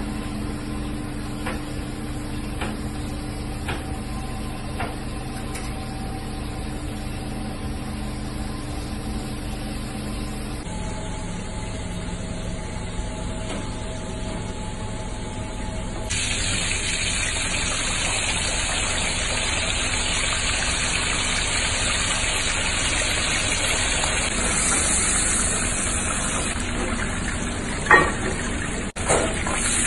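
Steady machine hum for the first half, then from about halfway on hot oil sizzling and bubbling as a whole floured fish deep-fries in a pot. Near the end, a sharp metal clank of tongs against a plate.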